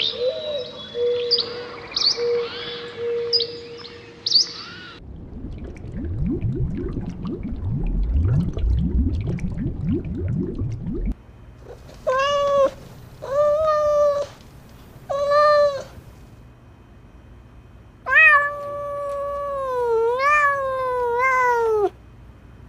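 Domestic cat meowing: three short meows, then one long drawn-out meow that wavers in pitch near the end. Before the cat, high chirping calls and then a run of low sweeps rising in pitch.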